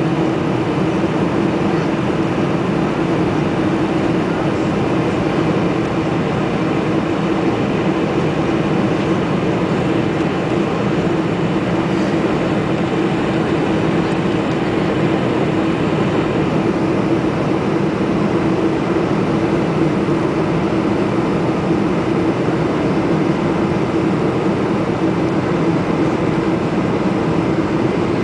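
Steady in-flight cabin noise of a Boeing 747-400 on approach: an even rush of airflow and engine noise with a constant low hum, unchanging throughout.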